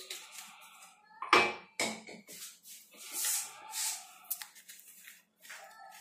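Kitchen utensils and containers being handled: a sharp knock about a second in, a second knock just after, then rustling and small clicks.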